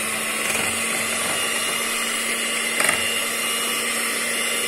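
Electric hand mixer running at a steady speed, its twin beaters whisking a thin egg, sugar, flour and milk batter in a glass bowl, with a brief rattle a little past the middle.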